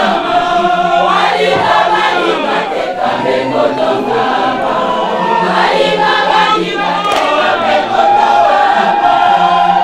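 A large church choir singing together, many voices holding long notes.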